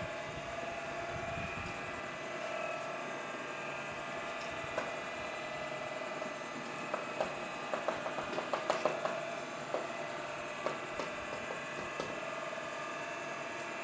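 Electric motor of a stainless-steel liquid mixing machine running steadily, stirring a batch of car-wash shampoo. A cluster of light clicks and taps comes from about seven to ten seconds in.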